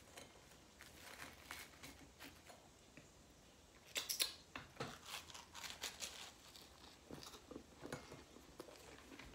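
A person biting and chewing jam-topped toast: faint rustling as the toast is handled, then from about four seconds in a run of crisp, irregular crunches.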